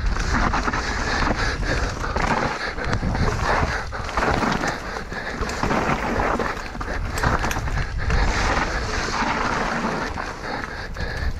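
Enduro mountain bike descending a trail at speed: tyres rolling over dirt and rocks with frequent knocks and rattles, and wind buffeting the microphone.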